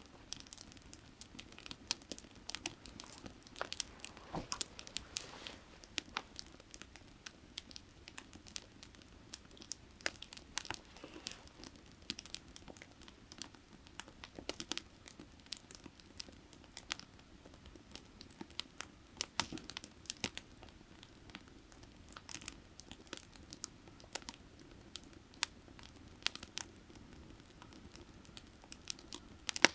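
Burning firewood crackling and popping in sharp, irregular snaps, several a second, over a faint steady low rush of creek water.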